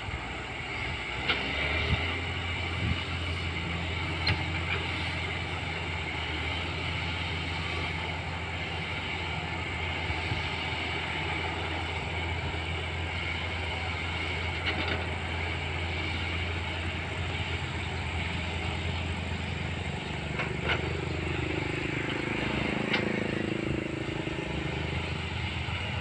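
Diesel engines of a working excavator and bulldozer running steadily, a low drone with a few faint metallic clanks. The engine note swells for a few seconds about three-quarters of the way through.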